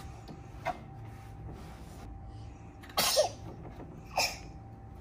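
A baby sneezing twice, a bigger sneeze about three seconds in and a smaller one about a second later, set off by bright sunlight in the eyes.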